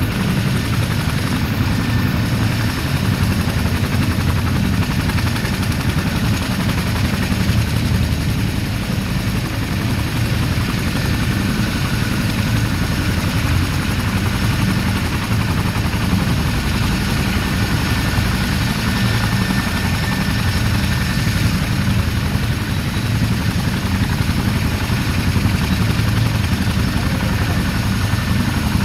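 CH-47 Chinook tandem-rotor helicopter running on the ground, its two rotors turning with a steady low, rapid beat under the constant rush of its twin turboshaft engines.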